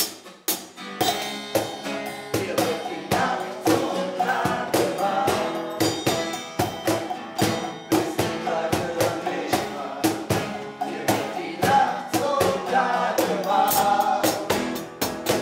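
A band playing a song, with several voices singing together over a steady drum-kit beat.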